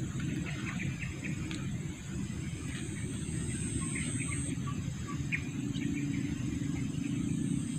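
Outdoor insect chorus: a steady high drone with a faint regular pulsing, one strand of it stopping about halfway through, with scattered small chirps or ticks over a low rumble.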